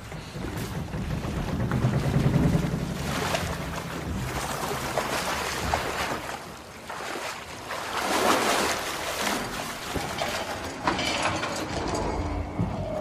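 Sound effects of a sinking ship's flooded interior: water rushing and sloshing over a low rumble, swelling twice, most strongly about eight seconds in.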